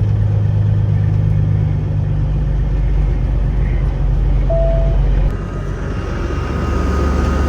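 A semi truck's diesel engine running steadily as the truck drives, a loud low drone. About five seconds in the sound changes abruptly to a quieter, lower drone.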